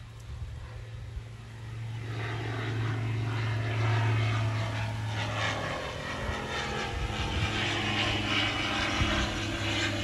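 Fly Synthesis Texan Club ultralight's 100 hp engine and propeller at take-off power as the plane climbs out, a steady low drone that grows louder over the first few seconds and stays loud. Gusty wind buffets the microphone.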